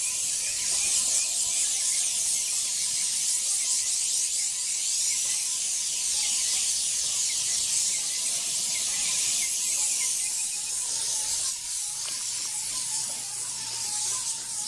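Airless paint sprayer hissing steadily as white roof coating is sprayed from a long extension wand onto roof tiles. The hiss dips briefly about 12 seconds in, then carries on over a low steady hum.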